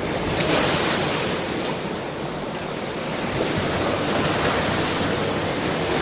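Ocean surf: waves breaking and washing in a steady rush of noise. A surge swells about half a second in, eases off, then builds again.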